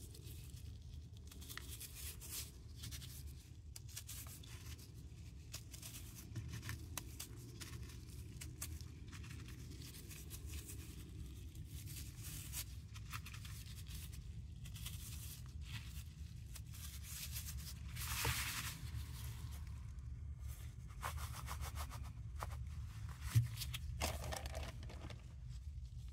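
Rubber-gloved fingers squeezing and raking through crushed paradichlorobenzene mothball powder: a dry, gritty crunching and rustling of fine grains, made of many small crackles. There is a louder burst about two-thirds of the way through and a single sharp tick a few seconds before the end.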